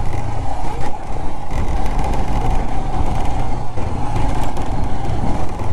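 Royal Enfield Himalayan 411's single-cylinder engine running under way on a rough unpaved track, with heavy wind noise on the microphone and a few brief knocks.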